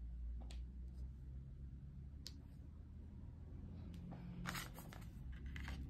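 Faint handling of oracle cards on a wooden table: light scattered clicks and rustles as the cards are moved and slid, with a quick run of sharper card sounds about four and a half seconds in and again near the end, over a low steady room hum.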